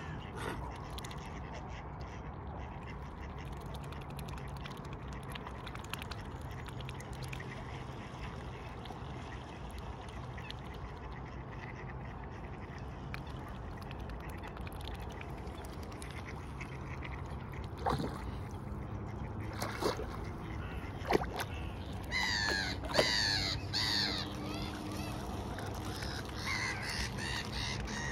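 Waterfowl calling: a quick run of short calls about four-fifths of the way through and a few more near the end, with a few sharp clicks just before, over steady low background noise.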